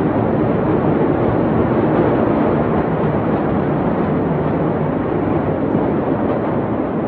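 Continuous loud rumbling roar from the Beirut port explosion, with no separate bangs.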